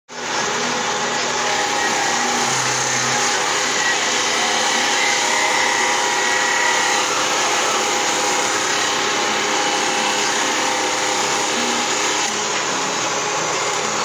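Bench-mounted circular stone saw running steadily while cutting through stone tiles.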